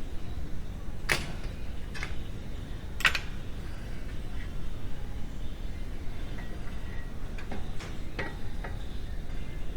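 A few sharp metallic clicks and knocks, irregular, from work with hand tools on the car's front wheel and brake assembly, over a steady low rumble. The two loudest come about a second and three seconds in, with a cluster of fainter ones near the end.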